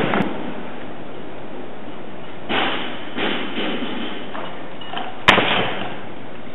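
Over a steady background hiss, a single sharp thud comes about five seconds in as a weightlifter catches a barbell clean: his feet stamp onto the wooden platform and the loaded bar lands on his shoulders.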